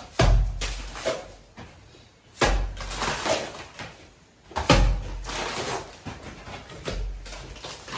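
Wet mortar being slapped onto a brick wall and scraped smooth with a trowel: a few dull slaps at uneven intervals, with scraping in between.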